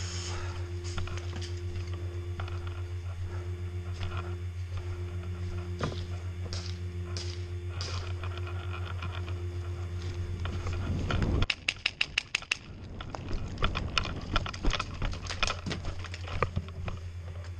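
Airsoft rifle firing a rapid burst of about nine sharp shots in roughly a second, a bit over 11 seconds in, over a steady low hum. Scattered clicks follow.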